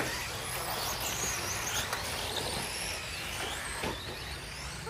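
Radio-controlled cars running, their electric motors giving high whines that rise and fall in pitch over a steady background rush.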